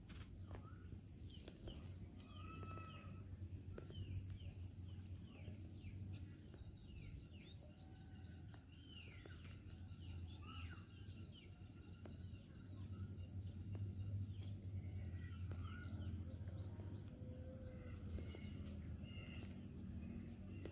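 Small birds chirping and calling, many short quick notes scattered throughout, over a steady high hiss and a low rumble of background noise.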